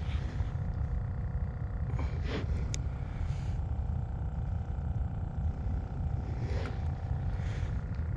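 Steady low engine rumble with a constant droning hum, unchanging throughout.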